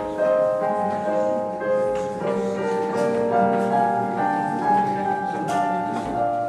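Slow music played on an electronic keyboard: held chords and notes that change every second or so.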